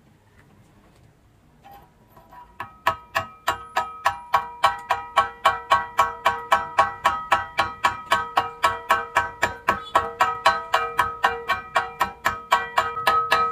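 A chipping hammer tapping the slag off a fresh stick-weld bead, about four quick strikes a second starting a few seconds in, each strike making the steel plate ring.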